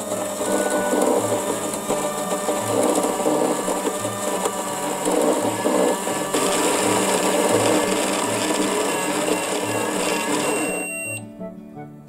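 Toy microwave running, a steady whirring noise while its timer counts down, cutting off suddenly near the end as the timer reaches zero. Background music with a steady bass line plays under it.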